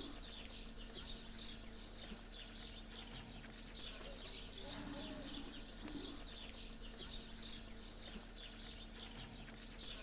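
A chorus of many small birds chirping without a break, with a low coo about five seconds in, typical of a pigeon or dove.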